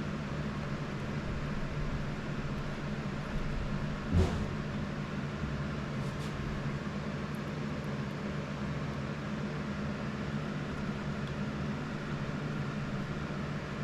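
Steady low mechanical hum, like a fan running, with one knock about four seconds in and a couple of faint clicks around six seconds as parts are handled and bolts are put back in.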